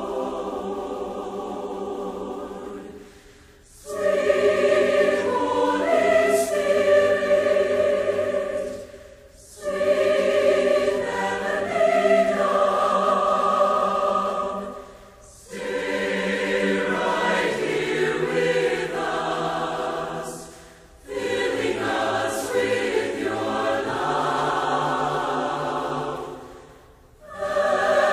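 Choir singing unaccompanied in sustained chords, in phrases of about six seconds with brief breaths between them.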